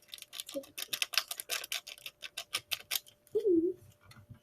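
Slime being squeezed and worked by hand, giving a quick run of small clicks and pops, several a second, for about three seconds. A child's short hum follows near the end.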